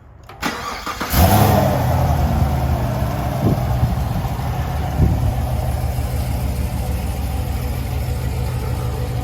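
2020 Camaro SS 6.2-litre V8 with long-tube headers and X-pipe, cold-started after fresh oil: a starter click, the engine catching about a second in with a loud flare, then settling into a deep, steady idle with two short throttle blips.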